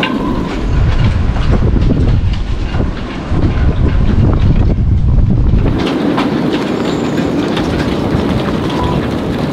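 Strong gusting storm wind buffeting the microphone, a deep rumble with scattered clicks, heaviest for the first five seconds or so and lighter after about six seconds in.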